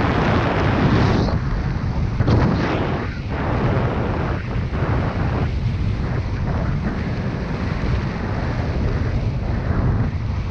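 Wind rushing over the microphone of a parachutist's head-mounted camera during a descent under an open canopy. It comes in uneven gusts, strongest in the first three seconds.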